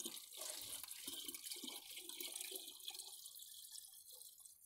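Well water poured from a galvanized metal bucket into a large plastic water jug, the stream splashing and gurgling into the jug's neck, weakening near the end.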